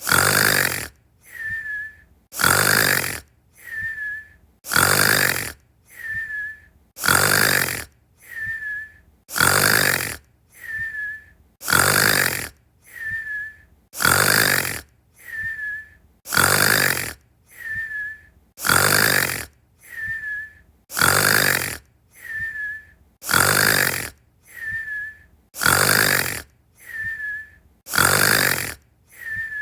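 Cartoon-style snoring: a loud rasping snore followed by a quieter breath that ends in a short high whistle. The cycle repeats evenly about every two and a third seconds, about thirteen times, like a loop.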